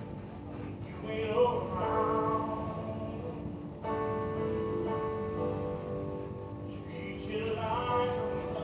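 Background music: a song with steady instrumental notes and sung phrases about a second in and again near the end.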